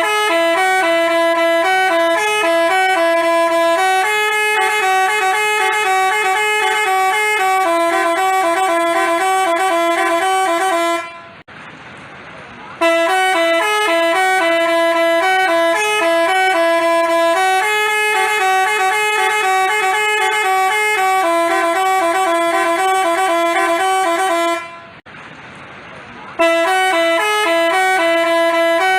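Basuri telolet bus horn, a multi-tone musical horn, playing a tune in stepped horn notes. The tune stops briefly twice and starts over each time.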